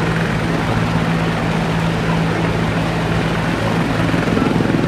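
Helicopter running with its rotor turning: a steady engine drone with the fast, even beat of the rotor blades.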